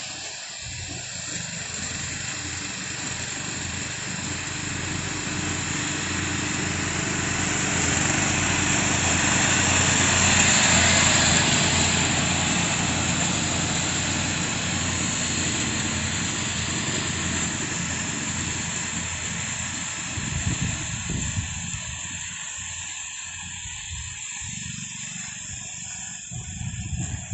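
Petrol engine of lawn-care machinery running steadily with a broad rushing hiss, which grows louder to a peak about ten seconds in and then fades away.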